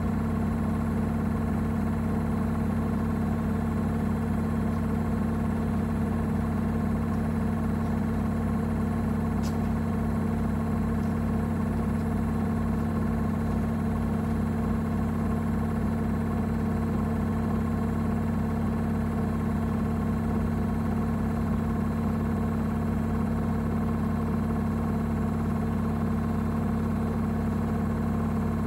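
Gorenje UseLogic front-loading washing machine running a spin-only program: a steady motor hum with a fast pulsing throb as the drum turns. One faint tick about a third of the way in.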